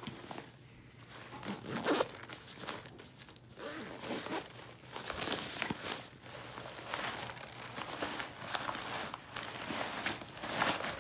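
Zipper on a NEEKFOX packable daypack's fold-away pouch being undone, then the thin fabric rustling and scraping in irregular handfuls as the backpack is pulled out and shaken open.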